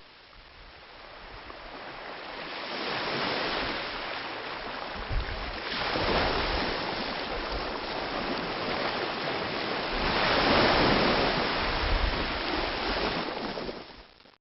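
Ocean waves breaking on a beach: surf washing in with a steady hiss that swells several times, loudest about two-thirds of the way through, then fades out near the end.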